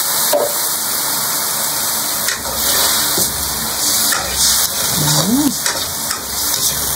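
Chicken sizzling steadily in a stainless steel wok in sauce with a little water just added. From a couple of seconds in, a metal ladle scrapes against the wok as the pieces are stirred.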